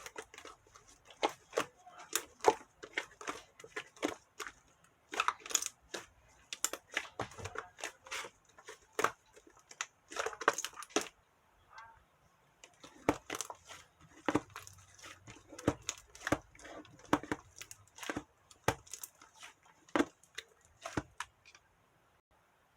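Cloud slime and cheese slime being kneaded and stretched together by hand, giving irregular sticky crackles, pops and tearing sounds that stop about a second before the end.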